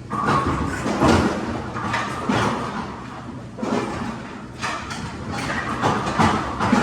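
Bowling alley pinsetter machinery behind the lanes: a steady low hum of the running machine with repeated irregular clatters and knocks of pins and moving parts, several in a few seconds.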